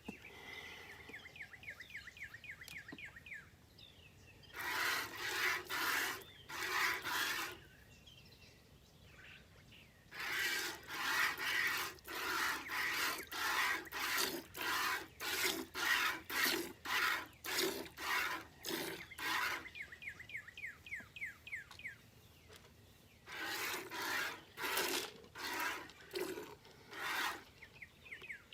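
A goat being milked by hand: streams of milk squirting into a pail with each squeeze, a rasping hiss about twice a second, in three runs with short pauses between.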